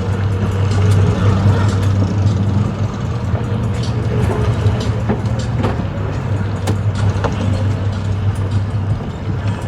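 An engine running steadily with a low, even hum, with scattered clicks and knocks over it.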